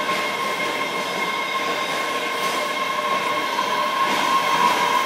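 MBTA Red Line subway train moving slowly along a station platform: a steady running rumble with a high, even whine at two pitches, slightly louder about four seconds in.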